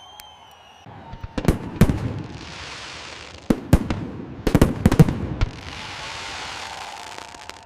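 Fireworks going off: a cluster of sharp bangs about a second and a half in, then a denser volley of bangs from about three and a half to five and a half seconds in, with hissing and crackle in between. A faint whistle glides at the very start.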